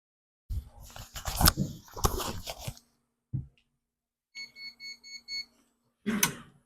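Bench handling noise: a cluster of knocks and rustles, then a thump. About halfway through, five short electronic beeps come at about four a second. Another knock follows near the end.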